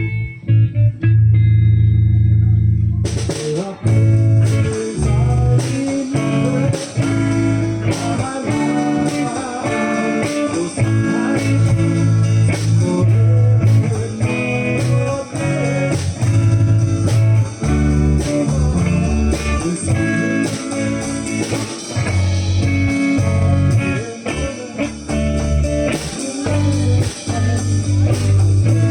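Live rock band playing an instrumental passage in a bluesy style. It opens on bass with a few light cymbal ticks, then electric guitar and drums come in with a steady beat about three seconds in.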